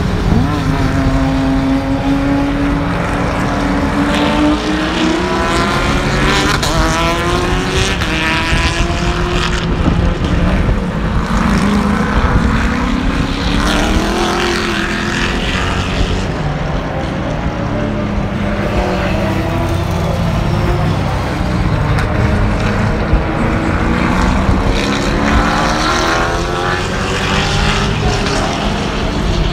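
Race car engines running hard as several cars pass one after another, each engine's pitch climbing through a gear and dropping back at the shift, over a steady low engine drone.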